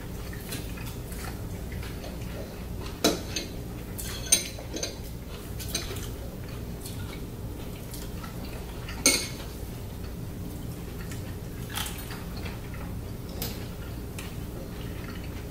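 Forks clinking and scraping against plates while eating, a handful of scattered light clicks, the loudest about nine seconds in, over a steady low room hum.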